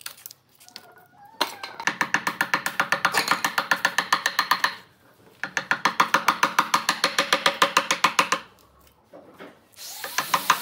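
Hand chisel scraping the edge of a wooden band around an epoxy resin tabletop, chattering in quick strokes of about eight clicks a second with a ringing tone. It comes in three runs, with short pauses about halfway and near the end.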